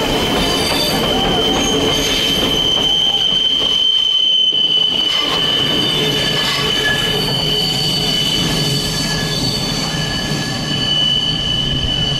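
Passenger train passing close by: a steady, high-pitched squeal of steel wheels on the rails over the rumble of the carriages.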